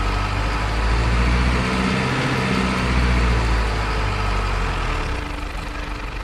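Diesel-like truck engine sound from a remote-control tanker truck, a low steady rumble that swells around one and three seconds in and eases off near the end.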